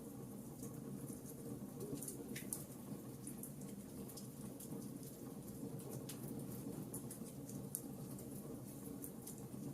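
Wood fire crackling in a fireplace: frequent small snaps and pops over a low, steady rush of flame, with a couple of sharper pops about two and six seconds in.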